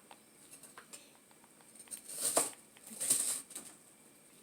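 Kitchen knife working an onion on a chopping board: scattered light taps, then two short scraping sounds about two and three seconds in.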